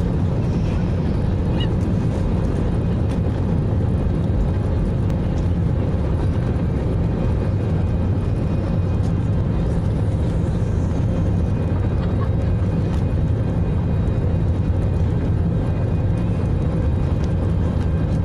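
Cabin noise of an Airbus A319 moving along the ground, heard from a window seat over the wing: a steady low rumble from the engines and airframe with a faint steady whine above it, not rising.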